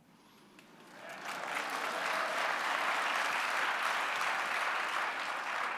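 Audience applauding: the clapping swells up about a second in, holds steady, then dies away near the end.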